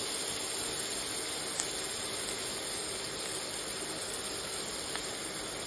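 Chopped cabbage and capsicum with red chilli paste sizzling steadily in hot oil in a stainless steel pan.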